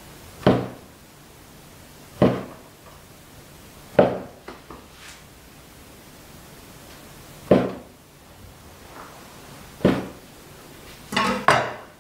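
Chinese cleaver chopping through a strip of rolled dough onto a wooden cutting board: single sharp knocks about every two seconds, five in all, then a quick run of knocks near the end.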